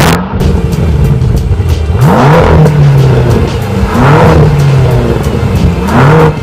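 BMW M6's 4.4-litre twin-turbo V8 revving hard, its pitch climbing steeply three times about two seconds apart, each time holding and then dropping back.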